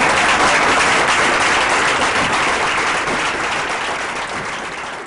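Audience applauding, a dense round of hand clapping that is loudest at the start and gradually dies away.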